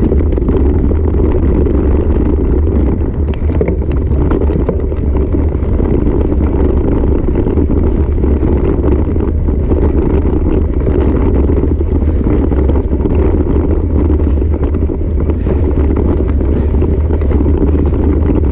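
Steady, loud wind buffeting and rumble on a handlebar-mounted camera's microphone as a bicycle is towed over rough grass, with faint rattles from the bike as it bumps along.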